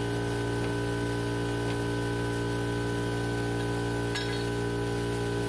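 Steady, unchanging machine hum with one light click about four seconds in.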